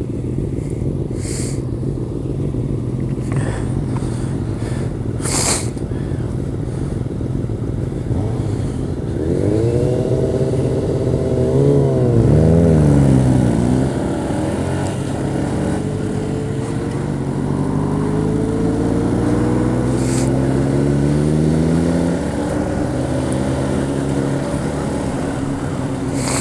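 Motorcycle engines idling at a stop, then pulling away and accelerating, the engine note rising and falling through gear changes. A few short sharp noises come through near the start and again later.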